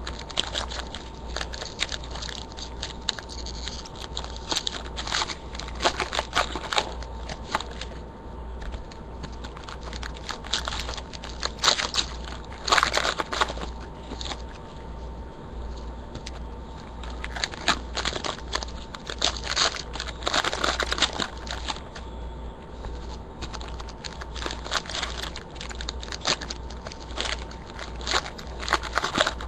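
Irregular crinkling and crackling of trading-card pack wrappers and packaging being handled and torn open, with clusters of sharper crackles, over a steady low electrical hum.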